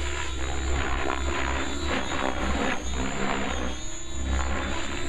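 Compass 6HV RC helicopter in flight: a rotor whoosh that swells and fades over a steady high motor whine as it flies aerobatics, with a strong low rumble beneath.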